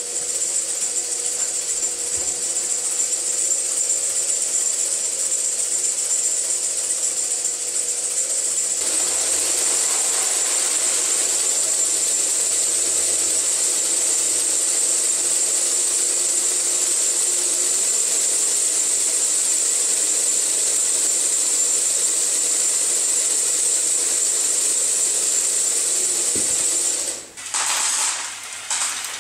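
Small electric motors and gearing of a Meccano model tractor and conveyor running with a steady whine as the tractor's PTO tips the trailer. About a third of the way in a dense, even rattle joins it: the small model potatoes pouring from the tipping trailer onto the conveyor belt.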